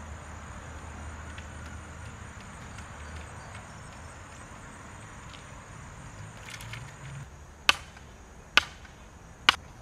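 Three sharp blows of a hand sledge driving a wooden stake into the ground, about one a second, near the end. Before them, a steady high insect drone.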